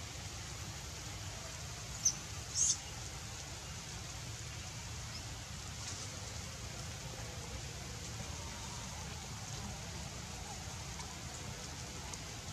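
Steady outdoor background hiss with a low rumble, broken about two seconds in by two brief high-pitched squeaks, the second louder.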